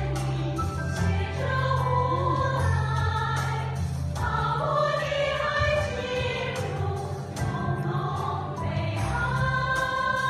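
Women's vocal ensemble of about ten voices singing together in harmony, holding long sustained notes that move together.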